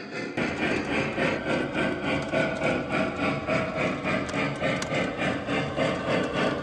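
Model train running along its track: a steady mechanical running sound with an even rhythmic pulse of about three beats a second.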